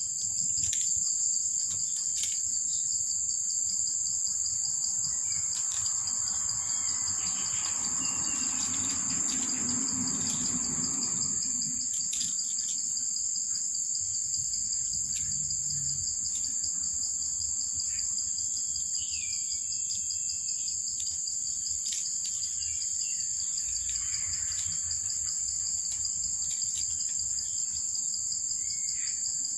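Insects calling in a steady, high-pitched chorus without a break. A soft rushing noise comes up for several seconds around the middle, with a few faint short chirps later on.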